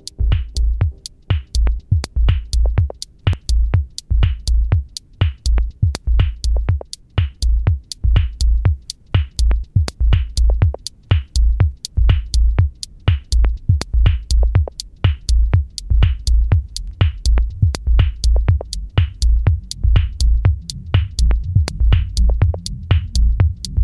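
Electronic music with a steady drum-machine beat: sharp clicking hits over a heavy, pulsing bass, a couple of beats a second.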